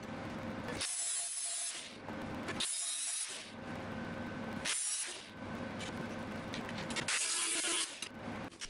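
Aluminium sheet panels being handled and pressed together by hand: metal scraping and rustling against metal in stretches of a second or two, with short pauses between.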